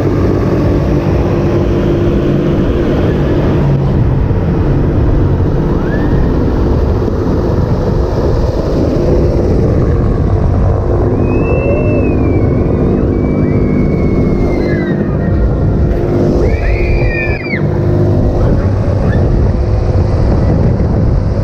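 Funfair ride in motion heard from on board: a loud, steady rumble, with high rising-and-falling cries through the middle.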